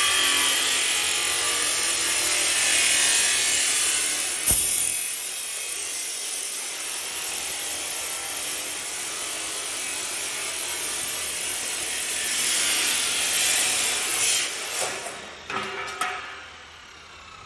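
A saw cutting through wooden roof joists, a steady cut with a sharp click about four seconds in. A few knocks come near the end, and then the cutting stops.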